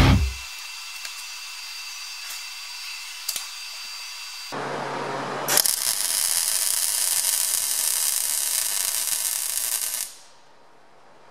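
Electric arc welding a steel wire hook: the arc strikes about five seconds in and crackles steadily for about four and a half seconds, then stops abruptly. A few faint ticks of the wire being handled come before it, and a low hum comes just before the arc and after it.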